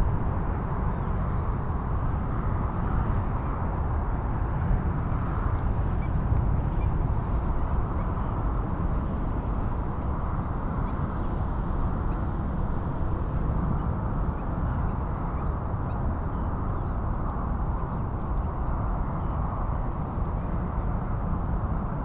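Flock of greater flamingos gabbling and honking without a break, over a steady low rumble of wind.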